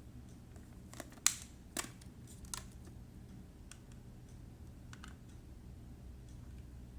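Small hard-plastic parts being handled: a few light, scattered clicks and taps, the sharpest about a second in, then one more near the end, over a faint low hum.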